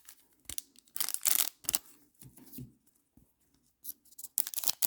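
Wrapper of a baseball trading-card pack crinkling and tearing, with cards being handled, in irregular short bursts. The loudest burst comes about a second in, and a quick run of crackles comes near the end.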